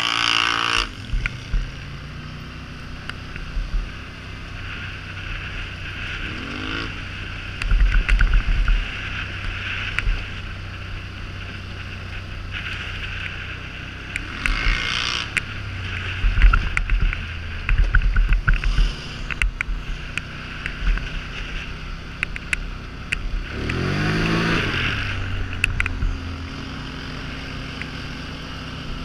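Polaris Sportsman 850 ATV engine running along a gravel trail, rising in pitch as the throttle opens about seven, fifteen and twenty-four seconds in. Underneath are tyre noise on the gravel and gusts of wind buffeting the microphone.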